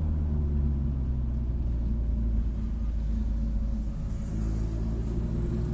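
Hyundai Elantra N's turbocharged four-cylinder engine running steadily at low revs, heard from inside the car.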